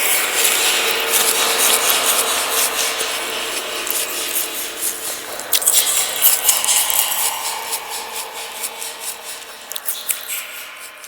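Horror sound effect: a harsh, continuous scraping and rasping noise with a faint steady tone underneath. It fades out gradually toward the end.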